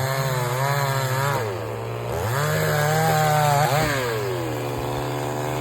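Chainsaw engine running, its pitch wavering, then dropping about a second and a half in, revving up again, and falling back near the end to a lower steady speed.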